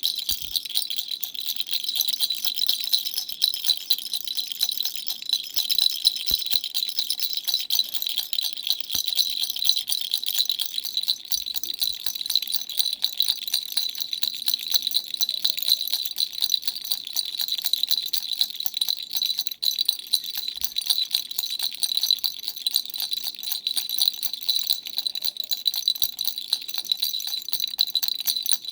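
Dumbbell-shaped baby rattle shaken without pause: a dense, rapid jingling rattle with a bright ring to it.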